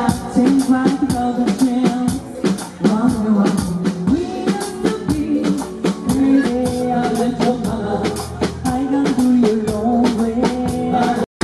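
Live dance band playing through the stage sound system: a steady drum-kit beat under a melody line. The sound cuts out for an instant near the end.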